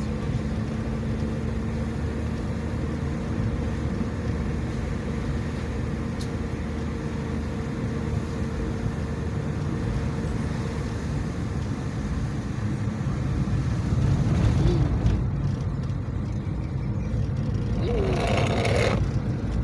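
Car engine and tyre noise heard from inside the cabin while driving uphill: a steady low drone that swells about 14 seconds in, with a brief rushing noise near the end.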